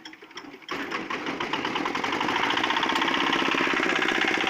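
Small diesel engine of a concrete mixer running with a fast, even beat, getting louder under a second in and then holding steady.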